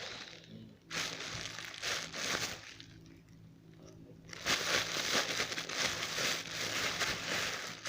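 Crinkly crackling as a bread-shaped slime squishy is squeezed and worked by hand, in two stretches with a quieter pause of about a second and a half between them.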